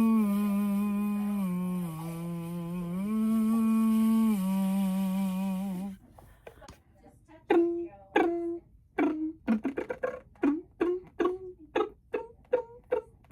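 A person's voice holding a hum that steps between a few notes for about six seconds, then stops abruptly. A run of short mouth pops and clicks follows, coming faster toward the end: vocal sound effects.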